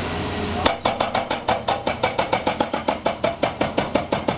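A steady rumble cuts off about a second in and a rapid, very regular mechanical knocking starts abruptly, about six or seven sharp knocks a second, and keeps going.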